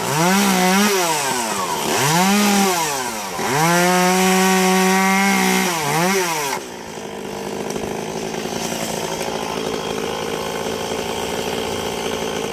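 Two-stroke chainsaw being revved up and down about four times, its pitch rising and falling with each blip of the throttle. About six and a half seconds in, the sound changes suddenly to a steadier, somewhat quieter running sound.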